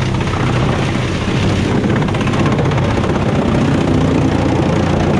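Heavy log-shredding machine running steadily, its engine hum under a dense, rapid clatter of wood being broken up.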